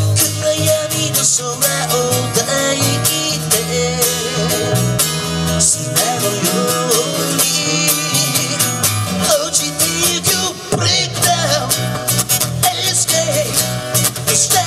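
Live acoustic duo: an electric bass and a strummed acoustic guitar playing a steady groove, with a man singing over them.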